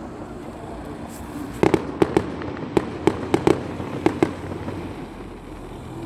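Fireworks going off: a quick run of about ten sharp bangs and cracks from about one and a half to four seconds in, over steady background noise.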